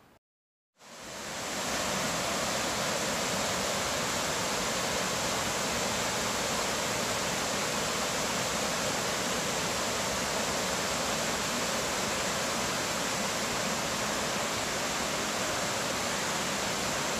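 White-water mountain creek rushing over rocks: a steady, even rush of water that fades in about a second in and holds unchanged.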